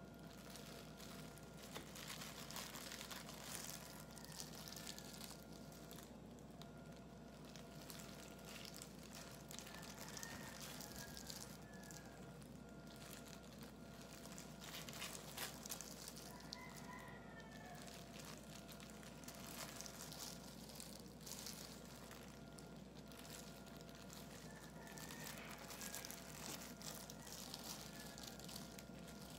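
Faint, irregular crinkling and rustling of disposable plastic gloves as hands lay kimbap fillings onto rice and nori on a bamboo mat, over a steady low hum.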